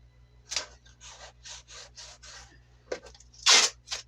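Tape pulled off the roll in a run of short rasping pulls, with light knocks from the MDF foundation pieces being handled and a louder rip near the end.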